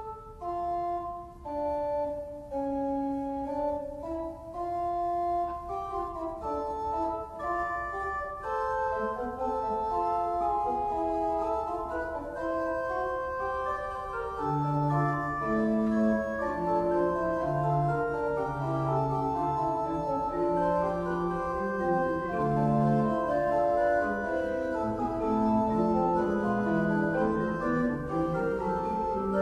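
Organ music: sustained notes moving in several voices, with a lower pedal bass line joining about halfway through.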